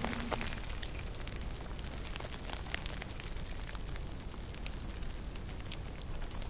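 Faint steady hiss scattered with irregular small crackles and ticks, a light sound like distant rain or crackling; a low hum fades out just as it begins.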